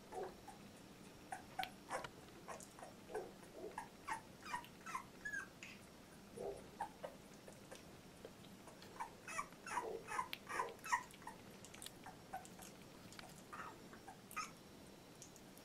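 A two-week-old chocolate Labrador retriever puppy whimpering and squeaking in many short high calls. The calls come in a first run, ease off, then come thick again about nine seconds in.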